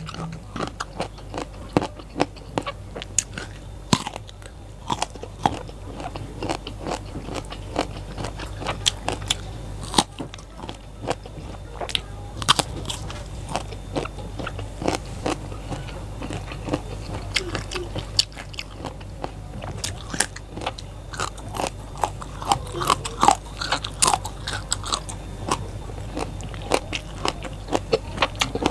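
Close-miked crunching and chewing of raw vegetables: many irregular sharp crisp bites and chews, one after another.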